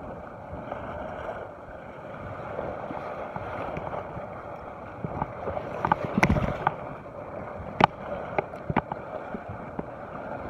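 Choppy sea washing steadily against a rocky shore. The microphone is knocked and rubbed about six seconds in as the phone is handled, and a few sharp clicks follow over the next two seconds.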